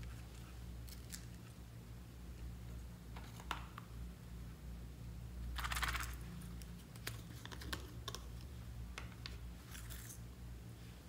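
Light clicks and taps of small plastic toy containers being handled over a glass bowl, with a louder rattling shake a little past halfway as decorations are shaken out, and another brief rustle near the end. A steady low hum sits underneath.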